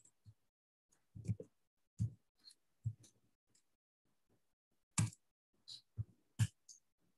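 Computer keyboard keystrokes as numbers are typed in and entered: about a dozen separate, irregular clicks, the loudest about five seconds in and again near the end.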